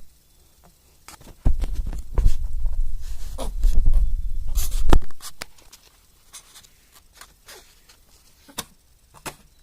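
Pet rabbit huffing: short breathy puffs and small clicks and movement sounds. A loud low rumble runs under them from about a second and a half in to about five seconds, then only faint scattered clicks.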